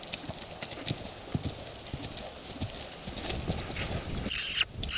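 Hoofbeats of a Thoroughbred horse cantering on the lunge over dirt and grass: repeated dull thuds, with a short breathy burst near the end.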